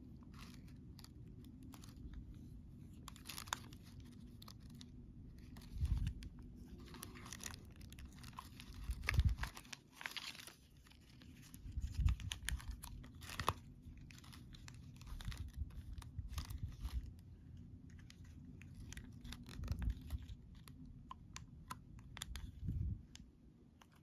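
Hands handling a small plastic action camera and its packaging: scattered clicks and taps, rustling and crinkling plastic, and several low thumps.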